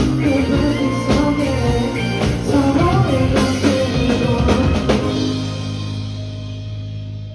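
Live rock band with drum kit and vocals playing the closing bars of a song, ending on a final hit about five seconds in and a held chord that rings out and fades.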